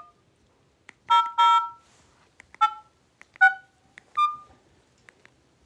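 Mobile phone keypad tones as a number is tapped in: five short two-tone beeps about a second apart, the tones for dialing China Mobile's service number 10086.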